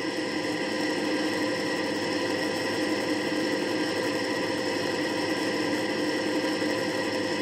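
Model class 55 Deltic locomotive running on the layout, its sound decoder playing a steady diesel engine drone that imitates the Napier Deltic engines through the model's small speaker. It grows a little louder at the start, then holds steady.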